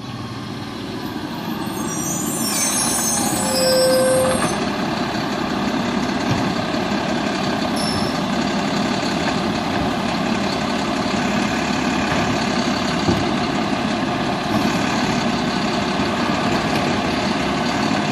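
Mack LR garbage truck's engine running as the truck pulls up to the curb, with a high air-brake hiss and squeal about two to four seconds in as it stops. The engine then runs steadily.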